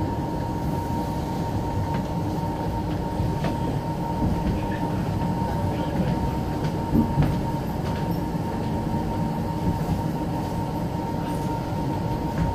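Inside a moving passenger train's sleeper carriage: a steady low rumble of wheels on the rails with scattered faint clicks. A constant high hum runs over it.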